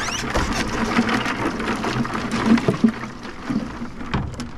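Hands rummaging in a cooler of ice water, sloshing water and rattling ice as plastic bottles are pulled out. The busy clicking and splashing eases off after about three seconds.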